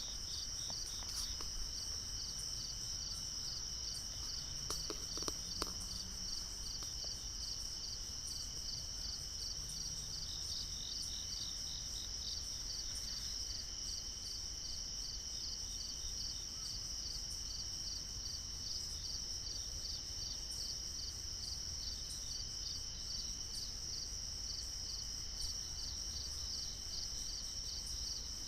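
Night chorus of crickets and other insects: a steady high-pitched trilling with a fast, even pulse that runs on without a break.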